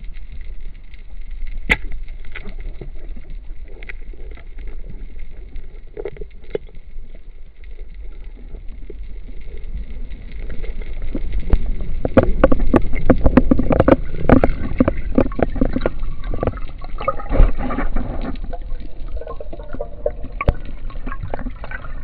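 Muffled underwater sound through a camera housing: water rushing and gurgling, with knocks and clicks. It grows louder and busier from about halfway in, then eases off near the end.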